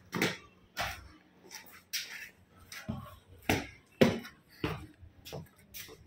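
Footsteps in hard-soled leather shoes walking on a concrete floor, a sharp step roughly every half second.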